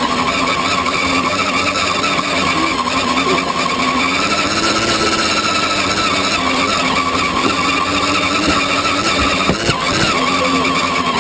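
Electric motor and gearbox of a radio-controlled scale Land Rover Defender 90 whining steadily as it crawls off-road, heard from inside its cab, with a brief knock near the end.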